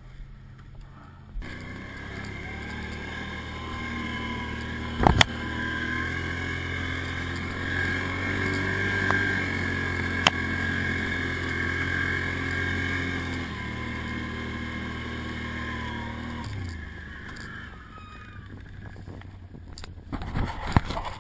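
ATV (quad bike) engine running at fairly steady revs while riding through mud, with two sharp knocks. The engine comes in about a second and a half in and fades out about three-quarters of the way through.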